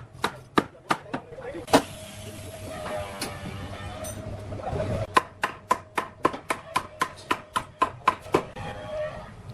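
Rapid series of sharp knocks on wood, about four a second, in two runs: one at the start and a longer one from about five seconds in, with a short pause between.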